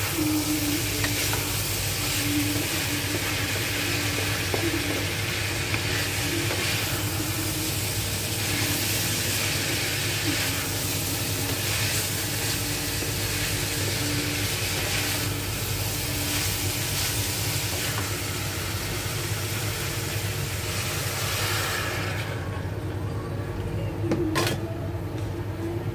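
Diced potatoes and vegetables sizzling in a wok as they are stirred with a wooden spatula. The sizzle drops away suddenly about four seconds before the end, and a single knock follows. A steady low hum runs underneath.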